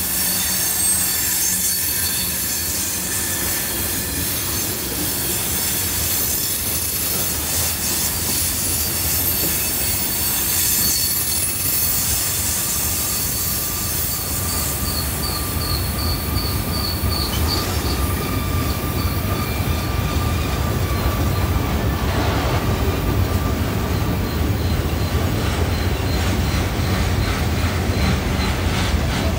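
A long freight train rolling through a tight curve, its steel wheels squealing against the rails in several steady high tones over the rumble of the cars. The low rumble grows heavier in the last several seconds.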